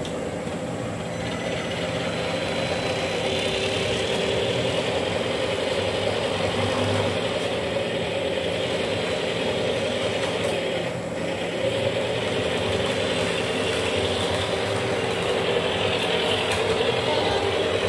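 Model CC201 diesel locomotive running along the layout's track, giving a steady mechanical whir of its motor and gearing.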